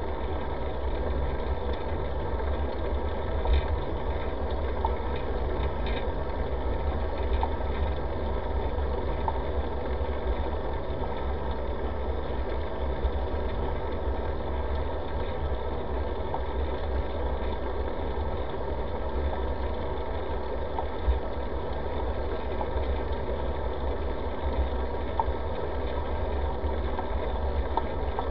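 Steady low rumble of a bicycle riding on a paved path, heard through a bike-mounted camera: wind on the microphone and tyre and road vibration, with a few faint knocks.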